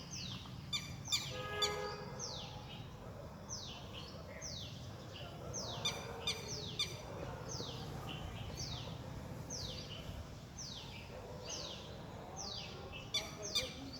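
Red-wattled lapwing calling: a long series of sharp, falling notes, about one or two a second, with a few short sharper notes near the start, about six seconds in, and near the end.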